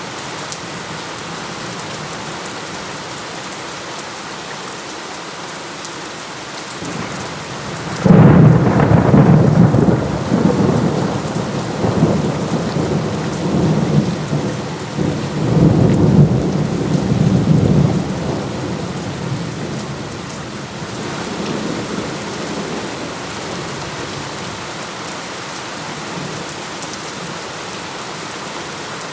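Steady heavy rain, with a thunderclap that breaks sharply about eight seconds in. The thunder rolls on in several loud surges for about ten seconds, then dies away under the rain.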